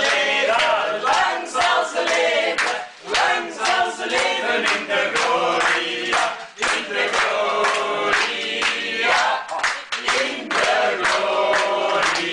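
A family group singing a birthday song together, clapping their hands along with it.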